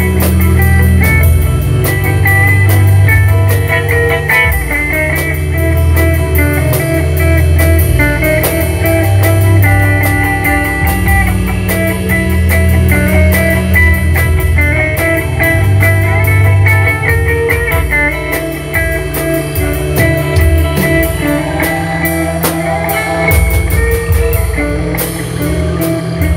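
Rock music with guitar and drums, a steady beat over a bass line.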